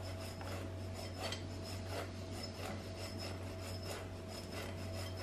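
Dried mixed fruit, sugar and ground cinnamon being tossed and rubbed together by hand in a glass bowl: a soft gritty rustling with small irregular ticks, over a faint steady hum.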